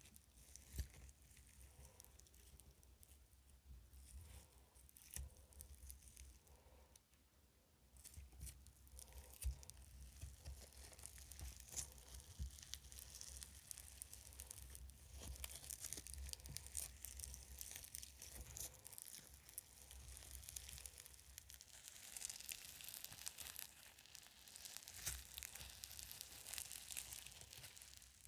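Foam slime full of tiny beads being stretched, squeezed and pulled apart by hand, close to the microphone: a soft, continuous crackling and tearing. It is sparse for the first several seconds and grows busier after about eight seconds.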